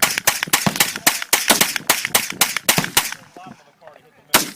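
Rapid gunfire: a fast string of shots, about four to five a second, for roughly three seconds, then one more single shot near the end.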